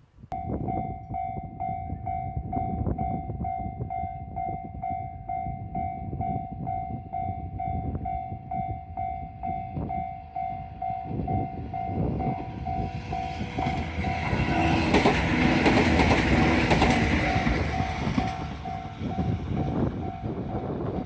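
Japanese level crossing warning sounding a rapid, steady pulsed ringing while a Sangi Railway train passes over the crossing. The train's wheel and running noise swells to its loudest about two-thirds of the way through and then fades, and the ringing stops near the end.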